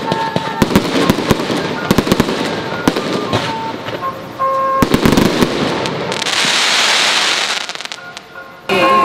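Fireworks going off in a rapid run of sharp bangs and crackles for the first four or five seconds. About six seconds in comes a loud hissing rush that dies away near the end.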